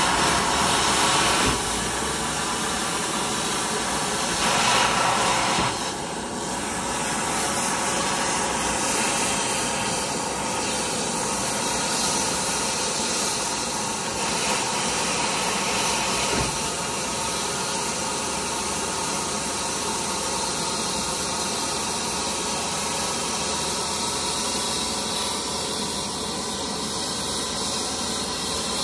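Steady jet-turbine whine and rush of air on an airport apron: a loud roar with a few faint high tones held over it.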